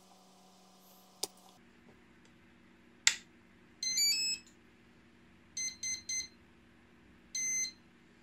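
A bench power supply is switched on with a sharp click about three seconds in. Electronic start-up beeps follow: a quick stepped tune, then three short beeps and one longer beep, the power-up sequence of a brushless motor's speed controller arming on a 12 V supply. A steady faint hum runs beneath.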